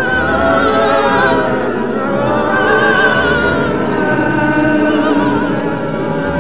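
Film score: a wordless choir singing sustained notes with a wavering vibrato, several voices at once.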